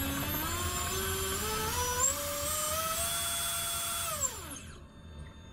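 A single brushless motor of an FPV quadcopter spun up in a motor test: its whine rises in steps as the throttle is brought up, holds, then falls away as the motor spins down and stops near the end. It runs with hardly any vibration, the sign of a well-balanced motor.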